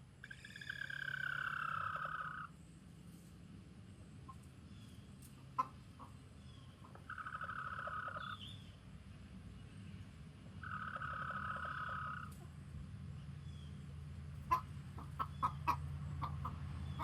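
Chicken giving a drawn-out warning call to the flock three times, each call a long, steady note of about one and a half to two seconds, the first falling slightly in pitch. A steady low hum runs underneath, and a few sharp clicks sound near the end.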